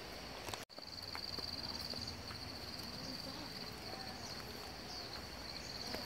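Insects trilling steadily in the surrounding woodland, a continuous high-pitched, fast-pulsing drone. All sound cuts out for an instant less than a second in.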